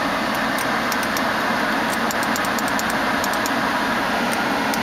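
Climate-control blower of a 2004 Mercedes-Benz S430 running at maximum, a steady rush of air from the vents, with light clicks of the panel's buttons being pressed several times in the middle and near the end.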